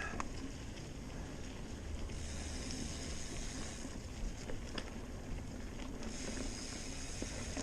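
Mountain bike rolling along a dirt trail: steady tyre and wind noise, with a few light clicks and rattles from the bike.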